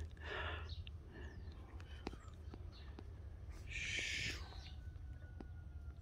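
Quiet outdoor background with a steady low rumble, a few light clicks and two short rustling or breathy noises, the louder one about four seconds in.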